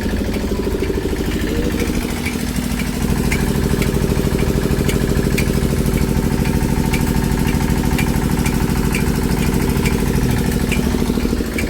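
An engine idling steadily, with light ticks at a regular beat of about one every two-thirds of a second.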